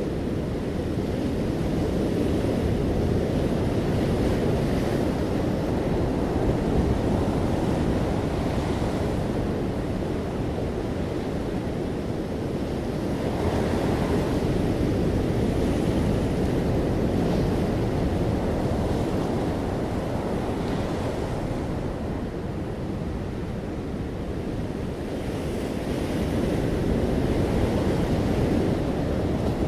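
Ocean surf: waves breaking and washing on a beach in a continuous rush that swells and eases every several seconds.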